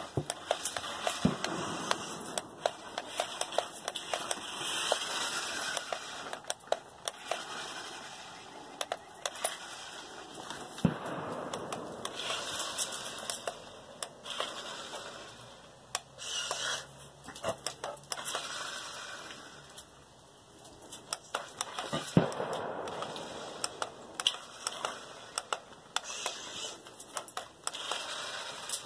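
Toy RC stunt car's electric motors whirring in repeated bursts that swell and fade every few seconds as it drives on concrete, with many sharp clicks and clatters from its wheels and body.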